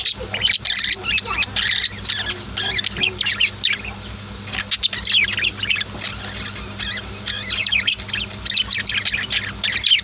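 Pet budgies and lovebirds chirping together in a cage: a busy, overlapping stream of short, quick calls, with brief lulls now and then.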